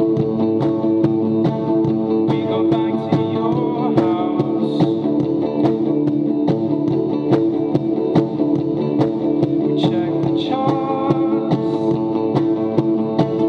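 Electric guitar strummed in a steady rhythm, the chords ringing on between strokes, played live through an amplifier.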